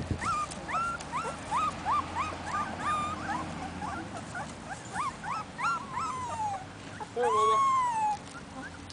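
Two-week-old Siberian husky puppies whimpering in a string of short, high squeaks, two or three a second. About seven seconds in comes one longer, louder, falling cry.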